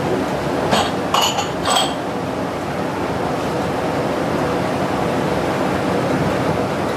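Three light clinks of dishes or glassware, about a second in, over a steady background noise.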